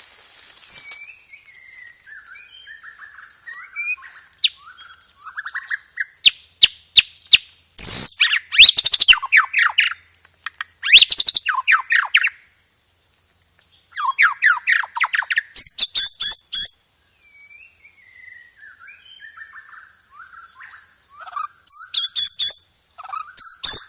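White-rumped shama (murai batu) singing a varied song: soft twittering phrases broken by loud, rapid rolling trills, in bursts about 8 and 11 seconds in, again around 14 to 16 seconds and near the end. A faint steady high-pitched tone runs beneath.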